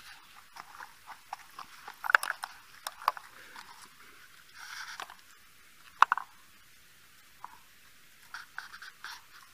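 Footsteps on loose stones: irregular crunches and clicks, with a few sharper ones standing out and a brief rustle midway.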